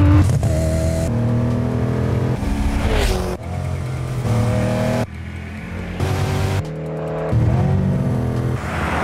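Race-car engines at full throttle in a run of short clips cut every second or so: each time the engine note climbs steadily, then breaks off at the cut.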